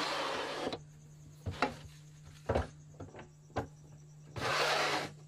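Machinery working in a pottery workshop: two bursts of harsh rushing noise of about a second each, one at the start and one near the end, with several sharp knocks and clunks between them, over a steady low hum.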